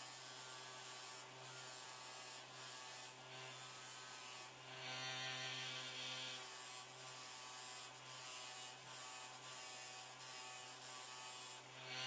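Bench grinder motor running steadily with a wire wheel, a constant electric hum. About five seconds in, a thin metal rod is pressed against the wire wheel for a second and a half, adding a scratchy brushing noise, with a few light touches before it.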